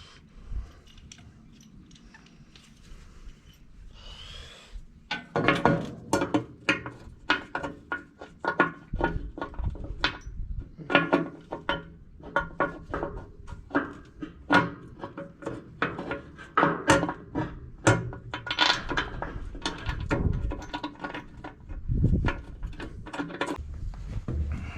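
Irregular clanking and knocking of metal on metal, a few strikes a second from about five seconds in, some strikes ringing briefly.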